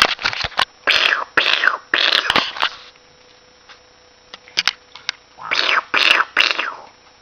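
Short, breathy, voiceless vocal bursts in two groups of three, like whispered or puffed pretend animal noises.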